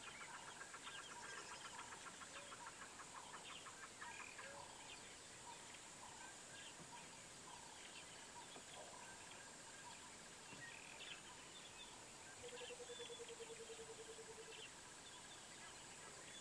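Faint bush ambience of wild birds calling. A rapid rattling call runs for the first few seconds, short chirps are scattered throughout, and a lower pulsed trill of about two seconds comes near the end, over a steady thin high hiss.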